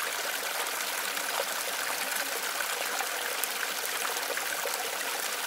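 Small waterfall spilling over stones into a pond: a steady splashing trickle of water.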